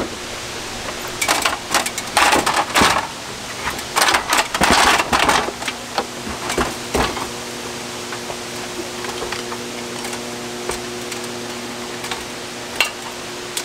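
Irregular bursts of knocking and clattering from carpentry work on a wooden roof frame, packed into the first half. After that a low steady hum carries on over wind noise.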